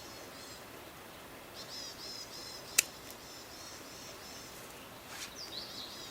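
Small birds singing and chirping in a quick, high series of notes, with one sharp click a little under three seconds in that stands out as the loudest sound.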